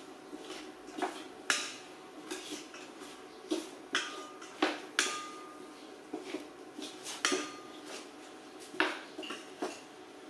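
A metal spoon knocking and scraping against a stainless steel cooking pot during stirring: irregular sharp clinks, a few ringing briefly, about a dozen in all.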